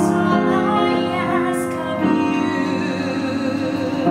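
A woman singing in a classical, operatic style, her voice wavering in vibrato, accompanied on an upright piano.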